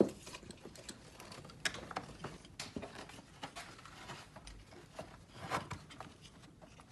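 Scattered light clicks and small knocks of parts being handled while a headlight assembly is worked loose.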